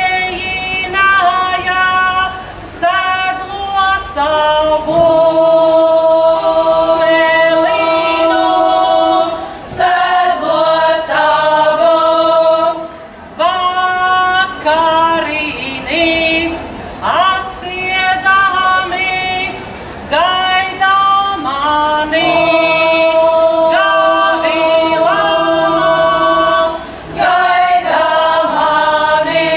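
Latvian folk ensemble, mostly women's voices, singing a folk song in several parts, in short phrases with long held notes between them.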